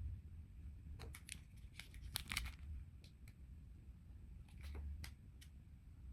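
Faint hand work on the bag: a quick run of short sharp snips and clicks about a second in, a few more near the end, over a low steady hum.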